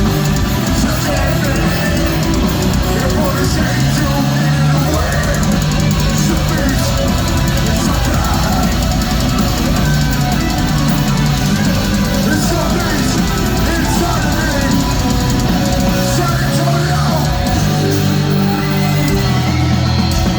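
Metalcore band playing live: distorted guitars, bass and fast drumming, heard loud and dense through a phone-style recording.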